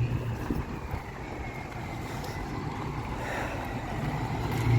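6.0 Powerstroke diesel engine running steadily, a low rumble with a faint high whistle above it, growing a little louder near the end.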